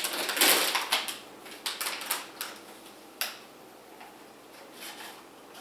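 Packaging of a motherboard box being handled and opened: a flurry of rustling and light clicks and taps, thinning out after about three seconds to a last click and quiet handling.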